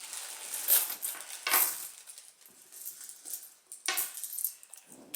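Pennies dropped one at a time into a small aluminum-foil boat floating in water, clinking against the pile of pennies already in it: a few separate clinks.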